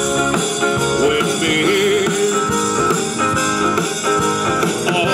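Live rock band playing, led by electric guitar.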